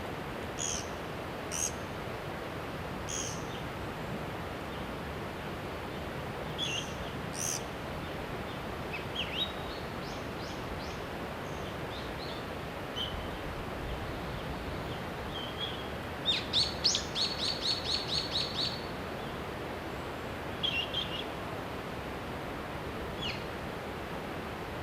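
Small birds calling: scattered short, sharp high calls, with a rapid run of about a dozen chirps two-thirds of the way through, over a steady background hiss.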